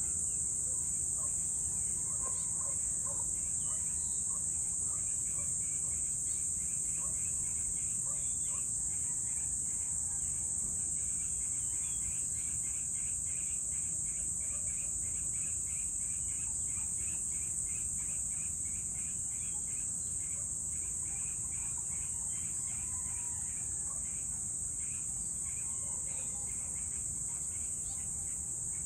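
Insects shrilling steadily in one high, unbroken tone, with birds chirping and trilling over it and a steady low rumble underneath.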